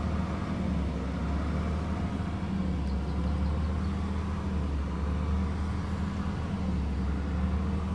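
Jaguar XJ6's straight-six engine idling steadily, a weird idle in a car freshly started after sitting unused for years.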